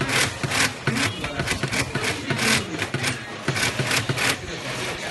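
Industrial glove-finger sewing machine stitching in quick irregular bursts, with a steady motor hum underneath.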